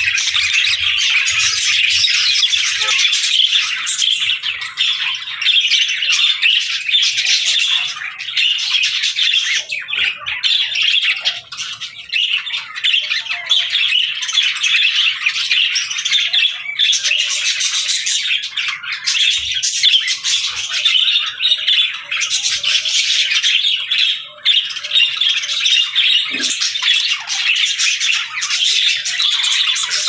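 A flock of budgerigars chattering without pause: a dense, high-pitched mix of warbling, chirps and squawks from many birds at once.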